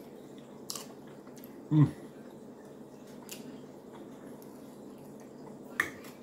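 Someone biting and chewing baked lamb eaten by hand, with a few sharp mouth clicks and one louder short low sound about two seconds in, over a steady low hum.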